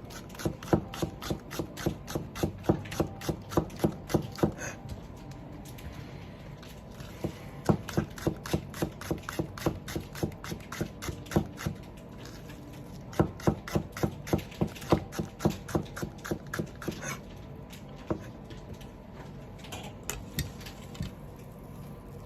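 Kitchen knife slicing negi (Japanese green onion) on a cutting board: quick, even strokes about four a second, in three runs with short pauses between them, then a few single strokes near the end.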